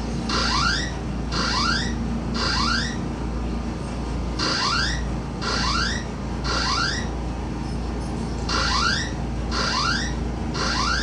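Japanese fire alarm sounding a rising whoop tone, repeated about once a second in groups of three with short pauses between the groups.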